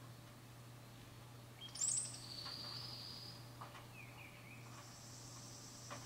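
Wild songbirds calling. About two seconds in comes a loud high call with quick falling notes that runs into a held high note. Softer slurred notes and a high buzzy trill follow near the end.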